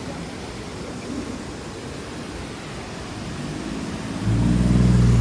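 Steady rushing of a waterfall. About four seconds in, the low, steady hum of a nearby vehicle engine starts and drowns it out.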